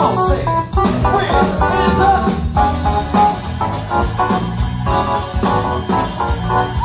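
Live band music played loud and without a break, with keyboard among the instruments.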